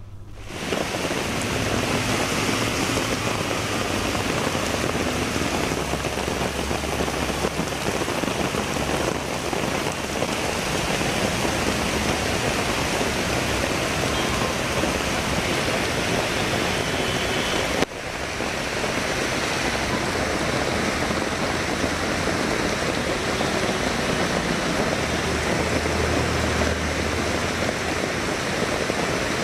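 Heavy rain falling in a steady downpour. The sound breaks off for a moment about eighteen seconds in and then carries on.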